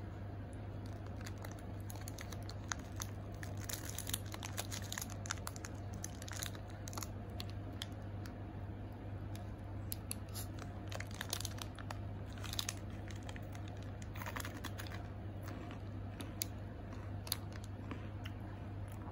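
Crinkly snack wrapper handled in the hand, giving irregular crackles, over a steady low hum.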